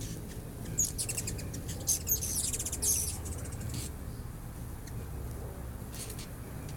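Ruby-throated hummingbirds giving high, rapid chittering calls in several quick bursts through the first four seconds and again near the end, over a low steady hum.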